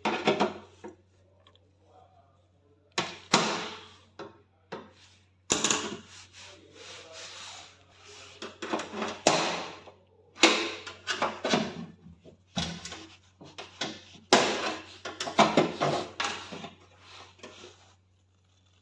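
Cutting and prying at the sealed, moulded fitting around an LG convection microwave's fan motor: irregular bursts of scraping and knocking, over a steady low hum.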